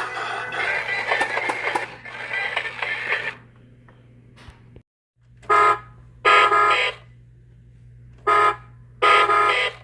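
1991 Gemmy Pete the Repeating Parrot toy playing sound through its small speaker: busy, music-like electronic audio that stops about three seconds in. After a brief dropout and a low hum, four short horn-like tones follow in two pairs, each pair a quick one then a longer one.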